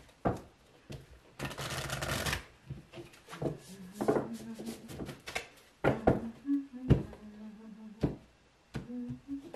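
A deck of oracle cards shuffled by hand: a dense burst of shuffling about a second and a half in, then scattered taps and clicks as the cards and their card box are handled.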